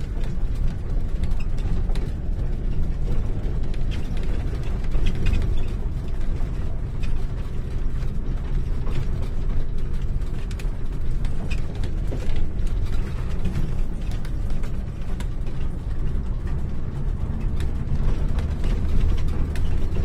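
Motorhome driving slowly along a bumpy dirt road, heard from inside the cabin: a steady low rumble of engine and tyres with constant rattling and clicking of loose fittings.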